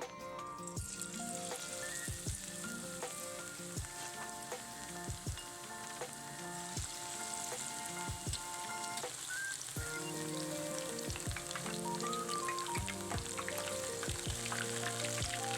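Battered hard clam tempura deep-frying in hot oil: a steady crackling sizzle that swells up about a second in. Background music with a steady beat plays under it.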